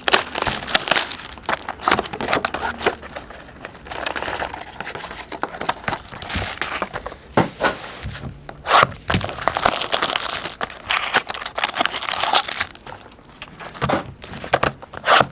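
Wrapping being torn open and crinkled by hand as a sealed box of trading cards is unwrapped: irregular crackling and rustling, with sharp bursts scattered throughout.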